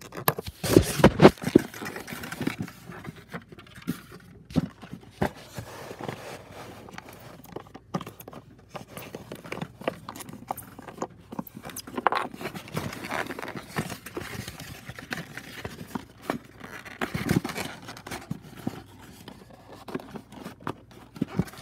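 Irregular scraping, rustling and clicking of packaging being handled as a 1:24 scale diecast car is worked out of its box, with louder bursts about a second in and again near the seventeen-second mark.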